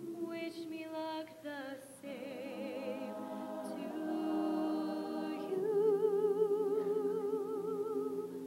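Show choir singing a cappella, a female soloist at the microphone over the ensemble, moving through several notes and then holding one long note with wide vibrato that fades near the end.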